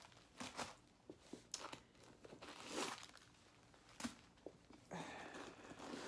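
Packing stuffing being pulled out of a leather handbag: quiet, scattered rustling and crinkling with small clicks, a louder rustle near the middle and a sharp tick about two-thirds of the way through.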